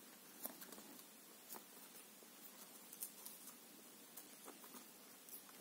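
Near silence with a few faint, scattered clicks and rustles of fingers handling a plastic cat-teaser wand and the cord wound round its tip.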